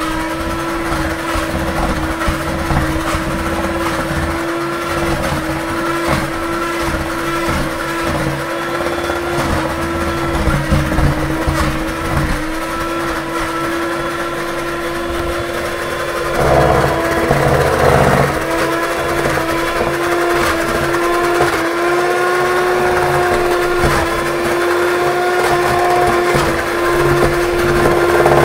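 Electric stand mixer running steadily at one speed, its beaters whisking chocolate cake batter in a mixing bowl. There are a couple of louder, rougher moments a little past halfway.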